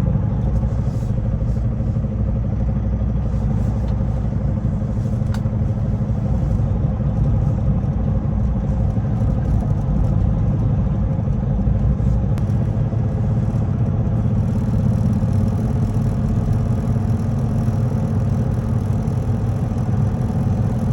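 Semi truck's diesel engine running steadily with a low, even rumble and a faint hum, as the truck moves slowly around the yard.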